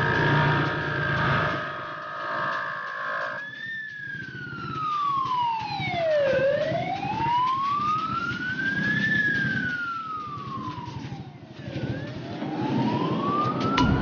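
Motorcycle engine and exhaust running, then from about three and a half seconds in an ambulance siren wailing, its pitch sweeping slowly up and down about twice, over the engine and road noise.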